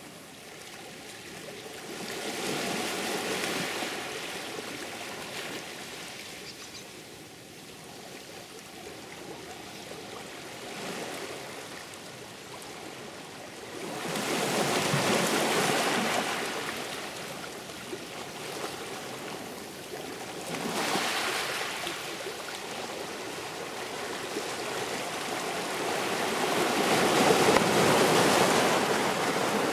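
Sea waves surging and washing on a shore, a rushing that swells and falls back every few seconds, loudest about halfway through and near the end.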